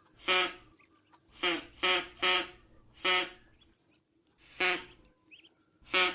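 Duck quacking: about six short, harsh quacks, some in quick runs of two or three, with pauses between.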